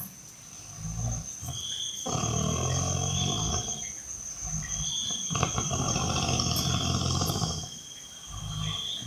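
A person snoring heavily: long, low, rough snores on each breath, with short pauses between them.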